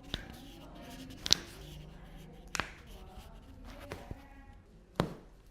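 A series of five sharp clicks, roughly a second apart, the loudest about a second in, over a faint steady background.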